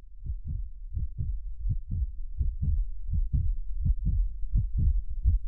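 Heartbeat sound effect: low paired lub-dub thumps at about 85 beats a minute, slowly growing louder.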